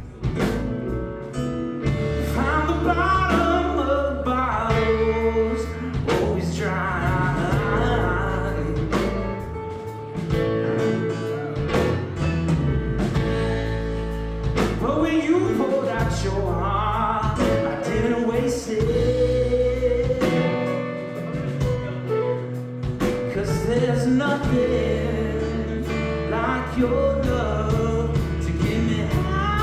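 Live band playing a song: a singer's melody over guitar and bass with a steady low pulse.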